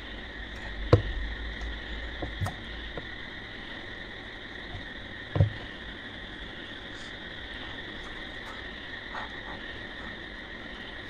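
Steady high-pitched background hum with a few short dull knocks: one about a second in, a softer pair around two and a half seconds, and the loudest about five and a half seconds in.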